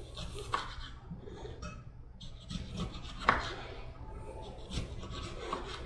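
A knife slicing a lemon: soft rubbing and cutting sounds with a few light knocks, the sharpest about three seconds in.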